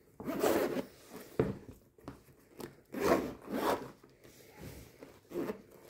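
Zipper of a fabric-covered bead-storage case being pulled open in several rasping strokes.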